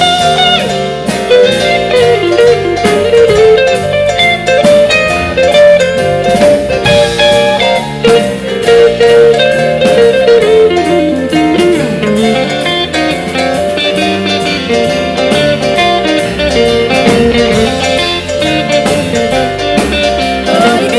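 Small blues band of piano, bass guitar, electric guitar and drums playing an instrumental chorus of a slow blues, with a bending single-note melody line out front.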